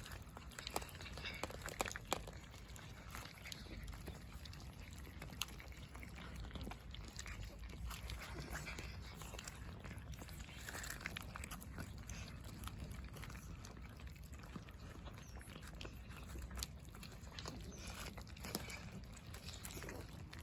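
Cats moving about, with scattered small clicks and a few faint brief sounds over a low steady rumble.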